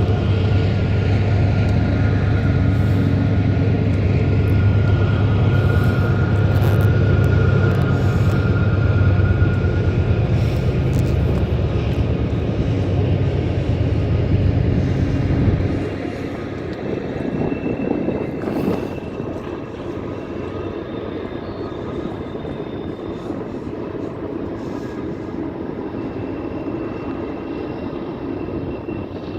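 Diesel locomotives of a train passing: a loud, deep engine rumble with thin steady high tones above it, which drops away suddenly about sixteen seconds in, leaving the quieter, even rolling noise of the cars.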